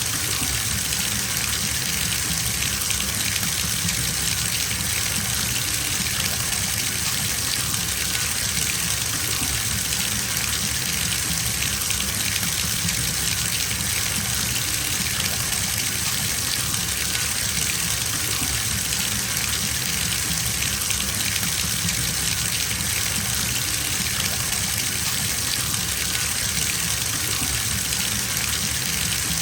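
Bathtub filling from the tap: a steady gush of water pouring into the tub, unchanging.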